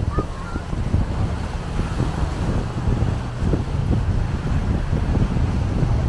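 Wind rumbling across the microphone over small waves washing onto the shore, with a steady low hum and faint distant voices.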